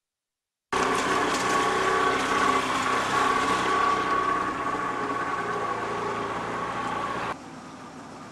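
An engine running steadily, with a steady whine over a dense rushing noise, starting abruptly about a second in. About seven seconds in it cuts off to a much quieter steady hiss of outdoor ambience.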